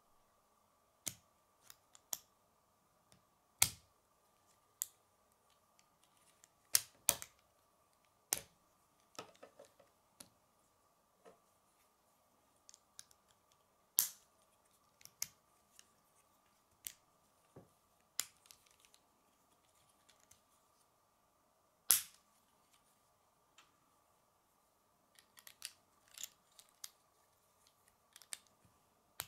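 K'nex plastic rods and connectors clicking as they are snapped together, in irregular sharp clicks a second or two apart with a quick run of them near the end, over a faint steady hum.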